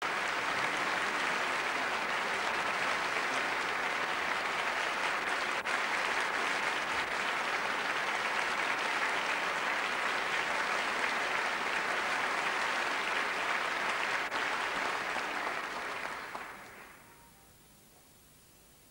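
Audience applauding steadily, the clapping dying away over a second or so near the end.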